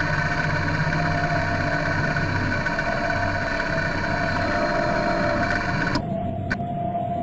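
Steady electric-motor whirr and hum of a radio-controlled model submarine's drive, picked up from inside the hull. A higher whirring layer cuts off suddenly about six seconds in, followed by a single click.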